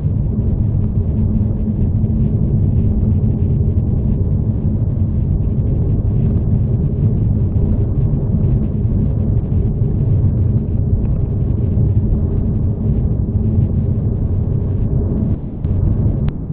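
Car engine and tyre noise heard from inside the moving car: a steady low drone and rumble that dips briefly near the end.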